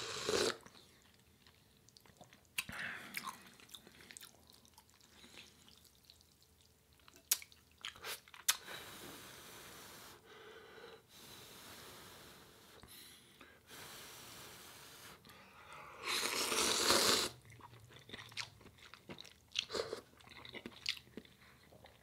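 Close-miked eating of hot Jin instant ramen: a slurp from the bowl, then chewing with small wet mouth clicks. In the middle come long breathy stretches of blowing on the hot noodles, and a louder slurp or blow a few seconds before the end.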